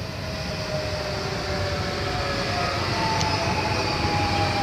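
SNCF Z 24500 double-deck electric multiple unit approaching, with a rumble that grows louder and a whine from its electric traction equipment that falls slowly in pitch as the train slows.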